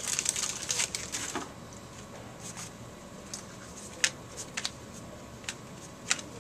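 Baseball card pack wrapper crinkling as it is torn open for about the first second and a half, then a string of light, sharp clicks and snaps as the cards are handled and flipped through.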